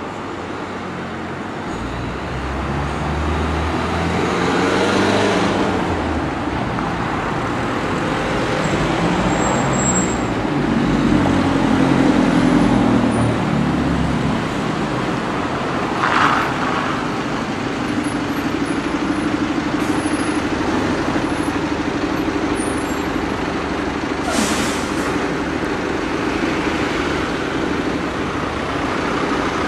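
Road traffic at a junction: motor vehicles running past and idling, with a heavy vehicle's low rumble in the first half and a steady engine hum later. Two short hisses, about halfway through and near the end.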